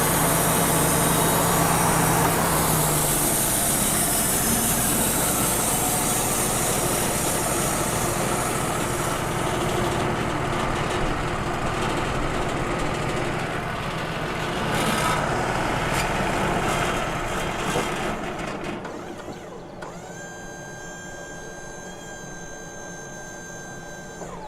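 Wood-Mizer LT35 portable band sawmill running, its band blade cutting through a soft maple log. About 18 seconds in the cut ends and the noise drops to a quieter, steady whine from the machine.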